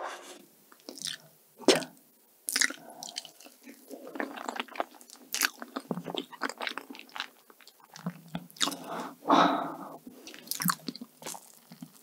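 Close-miked chewing of a soft, creamy Basque cheesecake: a quick string of wet mouth clicks and smacks.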